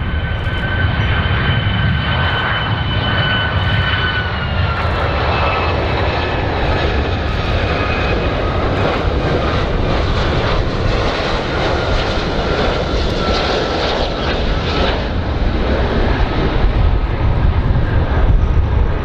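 Boeing 757 jet airliner on final approach with its landing gear down, its two engines giving a steady deep roar with a high fan whine. The whine drops in pitch about four seconds in as the plane passes.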